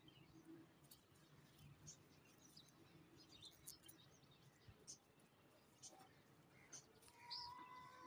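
Faint, scattered chirps of small birds in the background. Near the end a brief steady whistle-like tone rises above them for about a second.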